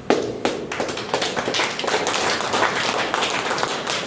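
Many people clapping. It starts suddenly and runs as dense, uneven claps.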